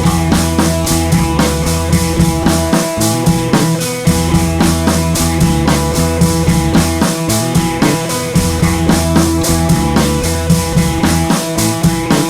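Background music: a rock track with a steady drum-kit beat and bass.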